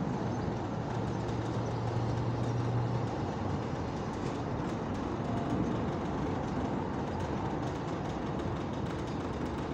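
Sandstorm wind blowing, a steady rushing noise, with a low steady hum that starts about a second in and stops about three seconds in.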